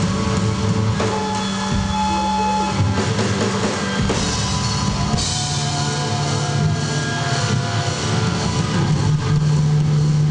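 A live rock band playing: sustained electric-guitar notes over drums. Cymbals ring out more brightly from about five seconds in.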